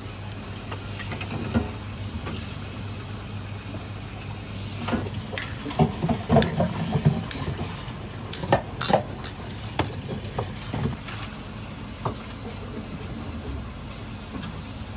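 Small ceramic bowls clinking and a spoon tapping and scraping against them as dishes are plated, in scattered sharp clinks that cluster in the middle stretch, over a steady low hum.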